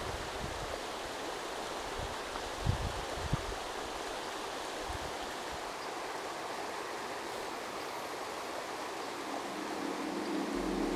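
River water flowing and rippling past the bank, a steady rush, with two short low thumps about three seconds in. Near the end a steady low hum of several tones comes in.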